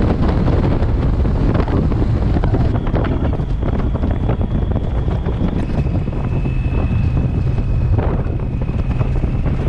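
Wind buffeting the microphone of a camera on a moving motorcycle at road speed: a loud, steady low rushing, with the motorcycle's road noise mixed in. A thin high whistle sounds through the second half.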